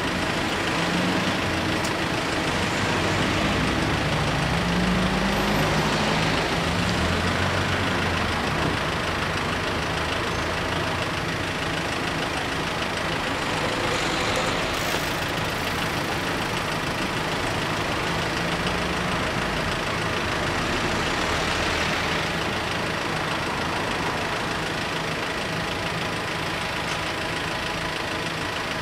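Engines of cars waiting in a queue, idling steadily, over a broad hiss of background traffic. In the first several seconds one engine's note shifts up and down.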